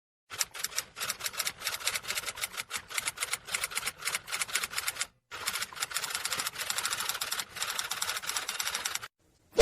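Rapid typing: a dense clatter of key strikes, several to ten a second, with a brief pause about halfway through. It stops about a second before the end, and a loud sudden hit begins at the very end.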